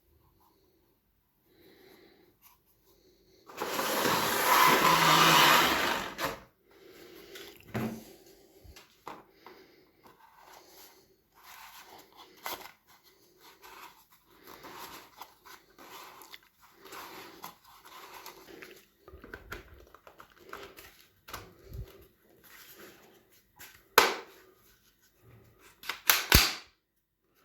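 Soft-bullet toy rifle being handled: a loud rushing noise lasting about three seconds near the start, then scattered small clicks and rattles, with a few sharp clicks near the end.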